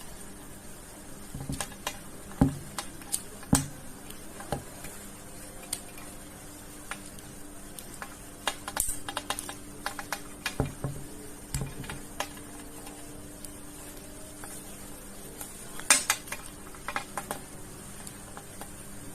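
Scattered clicks and knocks of hand tools and a plastic RJ45-terminated network cable being handled, with a steady faint hum underneath.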